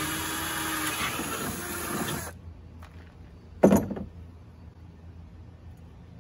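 Black+Decker cordless drill running against a wooden leeboard, its motor pitch wavering, then cutting off abruptly about two seconds in. About a second and a half later comes a single loud clunk as the drill is set down in the canoe.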